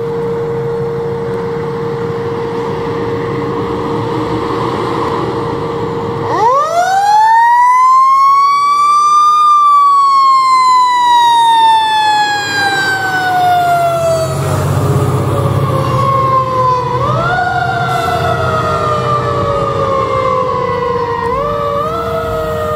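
Fire engine's mechanical siren winding up about six seconds in, peaking, then slowly coasting down, and pushed up again in short quick rises near the end. The truck's diesel engine rumbles as it passes close by, and a steady single tone runs underneath most of the time.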